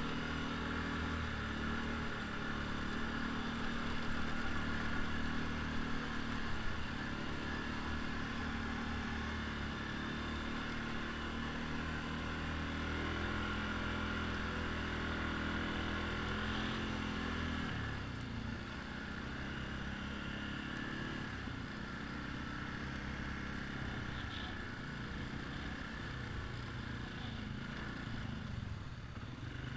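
ATV engine running under way, heard close up from the quad's own rack, with a steady rushing noise over it. The engine note drops and settles lower about two-thirds of the way through as the throttle eases.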